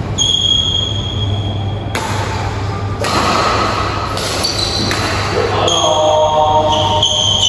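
Badminton rally in an echoing hall: sharp racket strikes on the shuttlecock and footfalls on the court, over two spells of a high, steady squeal.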